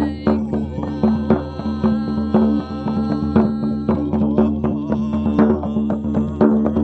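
A drum beaten in a steady rhythm over a sustained droning tone rich in overtones.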